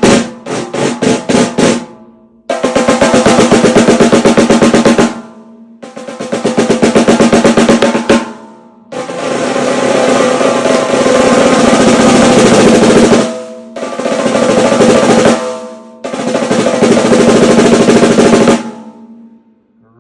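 14-inch by 6.25-inch whiskey barrel oak stave snare drum played with sticks: a quick run of strokes, then five rolls, several swelling louder, each cut off sharply.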